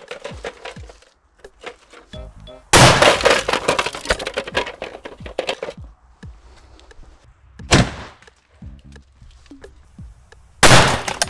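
Three loud shots from a 12-gauge side-by-side shotgun, about three seconds in, near eight seconds and near the end; the first rings on for a few seconds before fading.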